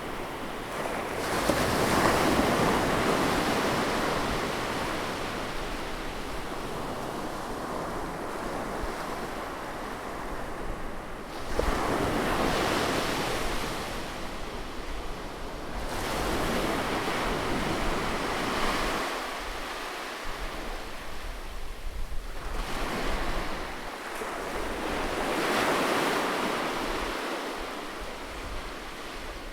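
Sea waves surging in and falling away, about four swells of surf.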